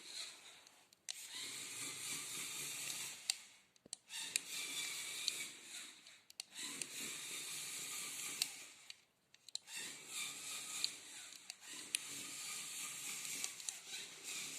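Lego Technic Power Functions electric motors and plastic gears whirring in runs of a few seconds, stopping briefly and starting again about six times, with small clicks.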